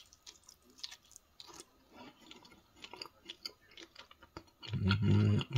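A man chewing a bite of pizza with a crispy crust: many small crunching, wet clicks. Near the end comes a brief, loud hummed "mmm" of enjoyment.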